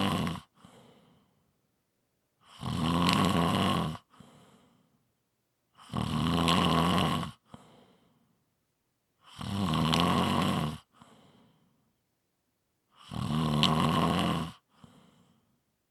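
A person snoring in a slow, even rhythm: four loud snores about every three and a half seconds, each lasting about a second and a half and followed by a brief faint breath.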